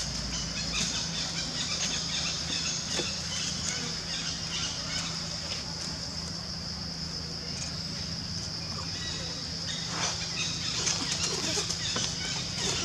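Forest ambience: a steady high-pitched insect drone over a low steady hum, with scattered rustles and small clicks from macaques moving on the roots and dry leaves.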